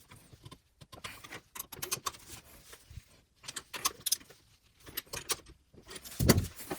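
Socket ratchet clicking and metal tools clinking as the 15 mm bottom nuts on a suspension fork's lowers are tightened, with a louder thump near the end.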